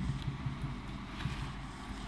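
Faint handling noise of a sheet of paper being put up on a whiteboard: a soft knock at the start, then light rubbing and small taps.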